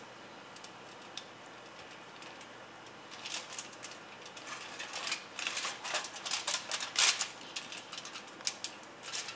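Aluminium foil crinkling and crackling in irregular bursts as hands roll a sponge cake up in it, starting about three seconds in.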